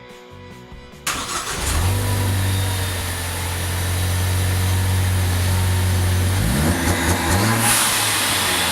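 Ford Focus ST's 2.0-litre turbocharged four-cylinder running through its exhaust: it starts abruptly about a second in, holds a steady idle, then is revved twice near the end.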